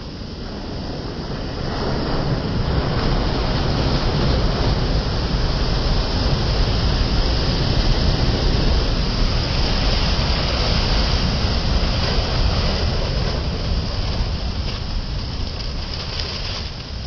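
Sea surf: a steady roar of waves that swells over the first couple of seconds and eases off near the end.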